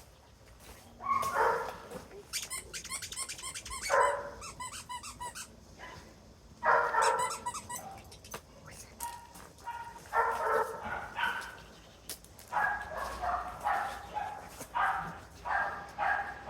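Squeaker in a plush hedgehog dog toy being squeezed over and over, giving pitched squeals of up to about a second each, coming more quickly near the end.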